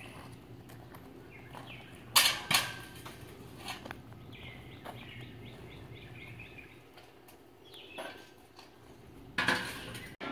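Metal carport truss tubing clanking, with two sharp knocks about two seconds in and a few lighter knocks later as the tubes are handled and laid on the concrete slab. Birds chirp briefly in the middle.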